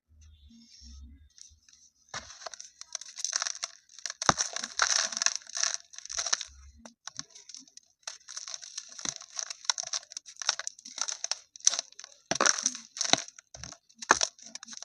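Dry chunks of pure cement being crumbled and smashed, with gritty crunching and crackling. A few soft low thuds come first, then the crunching starts about two seconds in. Several sharp loud cracks come through, one about four seconds in and a cluster near the end.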